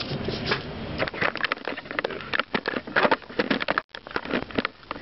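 Crackling and rustling of the white protective packaging sleeve around a Sony eReader being handled while sticky tape on it is picked at, in a quick irregular run of small crackles.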